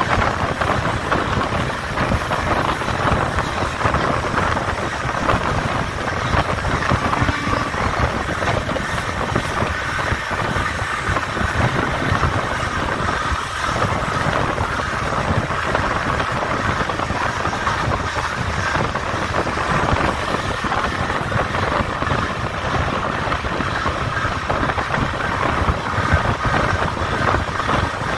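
Indian Railways express train running on the track: a steady, unbroken noise of wheels on rails with no clear single clicks or changes.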